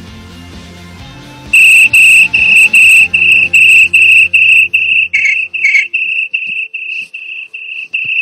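Loud, high-pitched electronic beeping, one steady tone repeated about two and a half times a second, starting about a second and a half in. Quiet background music runs underneath and fades out a little past halfway.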